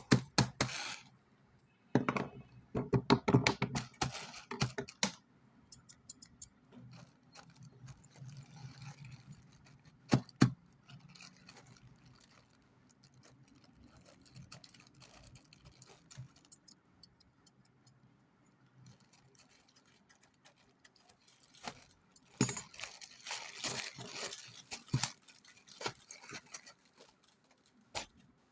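A Rubik's cube and its packaging being handled: clusters of small plastic clicks and rattles with some rustling, one burst a couple of seconds in and a longer one near the end, with a single sharp click in between.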